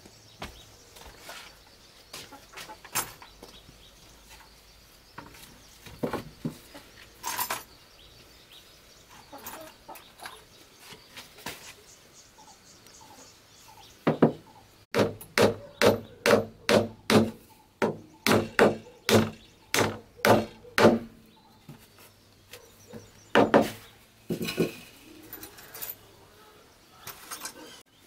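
Wooden boards and a bamboo frame being knocked and struck. Scattered knocks and clatter come first, then from about halfway a quick, even run of sharp blows, roughly two a second, for several seconds, and a few more near the end.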